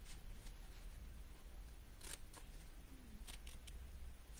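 Small scissors cutting notches into folded cardstock: a few faint, short snips, mostly in the second half.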